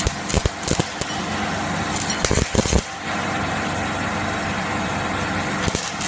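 Electric arc welding (stick welding) on a steel plate: a steady crackling hiss from the arc, with a few sharper pops about two and a half seconds in.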